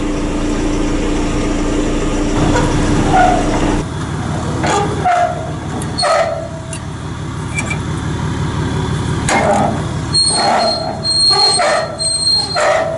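A truck engine running under a string of short, sharp clanks and knocks, about ten in all, some with a metallic ring, as deer feeders are unloaded from a trailer.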